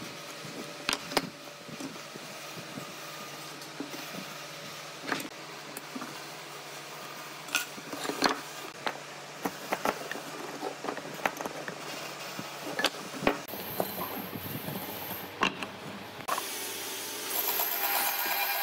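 Workshop handling sounds: scattered light clicks and knocks of wood pieces and hand tools being moved and set down. Near the end these give way to a louder, steadier noise.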